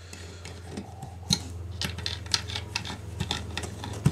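A small metal hex key being turned by hand in screws, giving a string of light, irregular metallic clicks and scrapes as it seats in the screw heads and drives them in.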